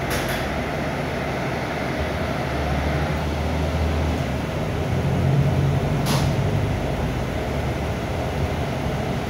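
Interior of a Mercedes-Benz O500U city bus on the move: the diesel engine running with cabin and road rumble, its note rising about halfway through as it pulls harder. Two short hisses sound, one at the start and one about six seconds in.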